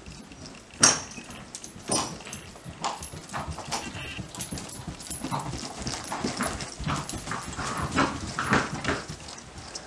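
Hoofbeats of a Spotted Saddle filly gaiting along a straw-and-dirt barn aisle, growing louder as she comes close and passes. Two sharp, louder sounds stand out about one and two seconds in.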